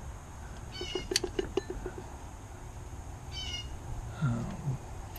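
Dry, unlubricated metal parts of an old Singer sewing machine's bobbin winder squeaking twice as they are worked by hand, high-pitched and nearly alike each time, with a quick run of small clicks after the first squeak.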